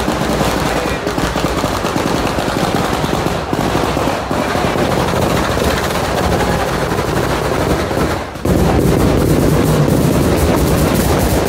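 A ground-level devotional firework batteria, a long chain of firecrackers exploding in rapid, continuous succession like machine-gun fire. The volley briefly thins, then comes back louder about eight and a half seconds in.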